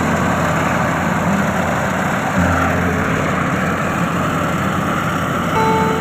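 A heavy engine running steadily, a dense unbroken noise at a constant level.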